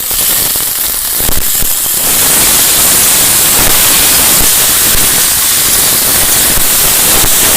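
Cut potatoes frying in hot mustard oil in a kadai, sizzling loudly; the sizzle swells about two seconds in.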